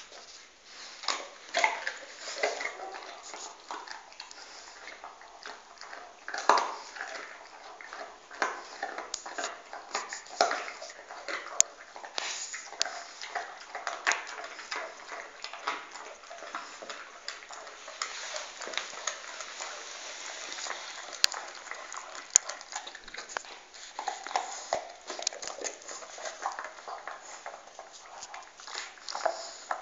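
A dog gnawing and chewing a bone: irregular crunching and clicking of teeth on bone, with a few louder cracks.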